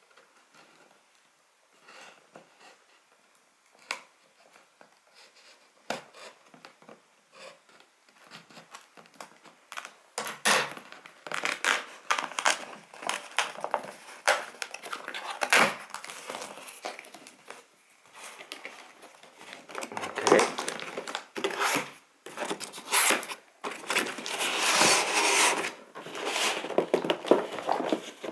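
Cardboard shipping box being handled and torn open: scraping, rubbing and tearing of cardboard and packing tape, with sharp clicks. Soft taps and rubs at first, growing much louder and busier about ten seconds in.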